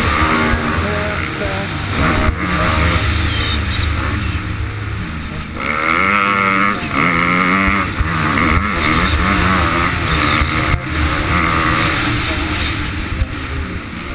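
Motocross bike engine heard from the rider's helmet camera, revving up and down over and over as the bike accelerates, shifts and lets off through the track's jumps and ruts.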